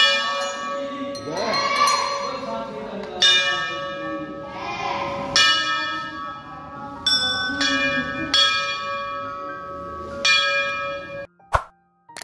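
Brass temple bells rung by worshippers, struck about every one to two seconds and ringing on with overlapping metallic tones over a steady hum, with people's voices beneath. About 11 s in the ringing cuts off abruptly, followed by a single click.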